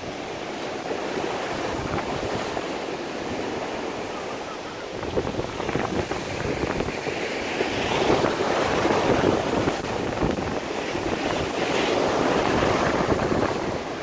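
Storm surf breaking and washing up the shore in a continuous rush, swelling louder twice as bigger waves come in. Strong wind buffets the microphone.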